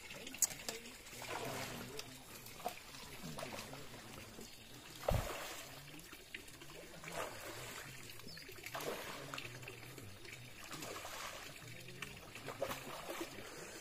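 Faint trickling and light splashing of pond water, with a dull thump about five seconds in.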